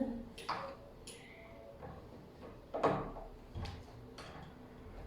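Handful of sharp clicks and knocks of doorknob hardware being handled and fitted on a door, the loudest about three seconds in.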